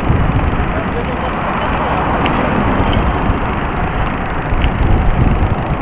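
Steady rumbling, crackling noise of a bicycle rolling along a paved street, picked up by a small action camera mounted on the bike, with a few faint ticks.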